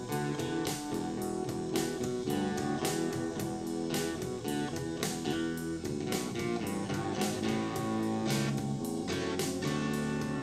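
Guitar-led song with a steady drum beat, played through a small portable Bluetooth speaker.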